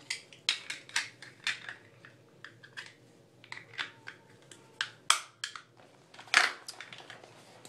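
Handling noise close to the microphone: a run of quick, irregular clicks and scrapes from small objects being handled, with a louder scrape about six seconds in.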